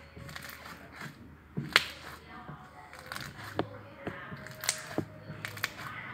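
Slime being squeezed and poked by hand, making sharp pops and clicks: the loudest comes about two seconds in, followed by several more in the second half.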